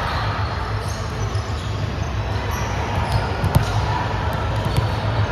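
Volleyball thumps from the ball being hit and bouncing on the court, over a steady background of hall noise, with a sharper impact about three and a half seconds in.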